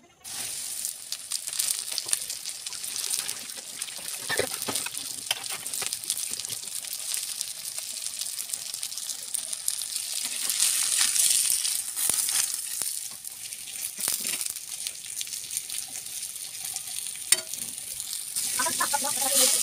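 Flour-and-spice-coated whole pomfret shallow-frying on a hot oiled iron tawa: a steady high sizzle with scattered crackles. It starts abruptly as the fish is laid on the pan.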